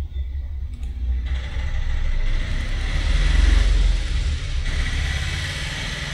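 Low rumble with a hiss that swells to a peak around the middle and then fades.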